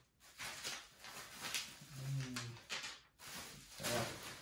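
Plastic packing material crinkling and rustling in quick bursts as a hand rummages through a cardboard box. A brief low hum comes about halfway through.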